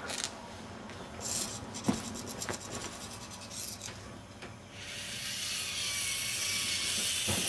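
Rustling and rubbing as a small tracked rover robot is picked up off the carpet and set back down, with a few light knocks. From about five seconds in, a steady hiss begins and keeps on.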